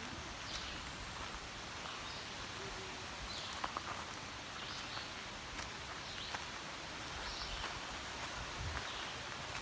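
Footsteps on a gravel trail, a soft crunch about once a second, over a steady outdoor hiss.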